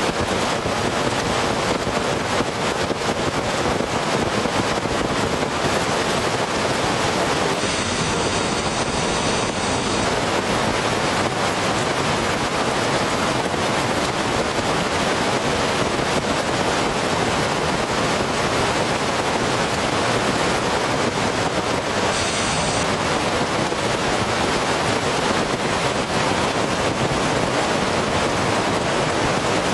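Heavy rain pouring steadily, a dense even noise with no let-up.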